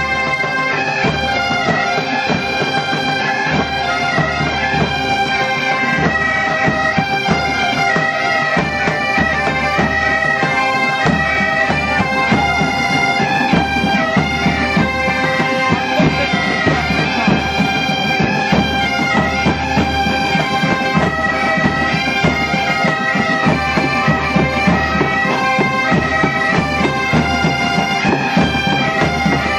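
A large group of Galician bagpipes (gaitas) playing a tune together over their steady drone.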